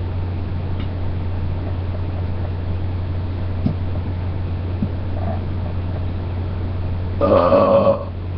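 A person burps once, loudly, for just under a second near the end, over a steady low hum.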